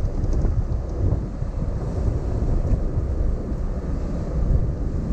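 Low rumbling wind buffeting and road noise from a car driving along a paved road, steady throughout.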